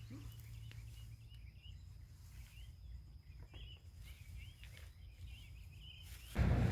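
Small birds chirping faintly and repeatedly in the background over a steady low rumble of outdoor noise. Just before the end, a sudden louder noise cuts in.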